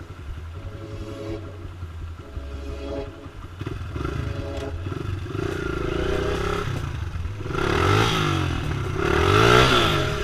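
Trail motorcycle engine revving, its pitch rising and falling again and again, getting louder in the second half.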